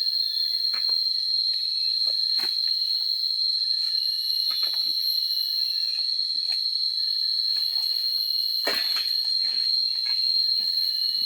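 A steady, high-pitched insect chorus, like crickets or cicadas, with scattered short clicks and knocks over it, the clearest one about nine seconds in.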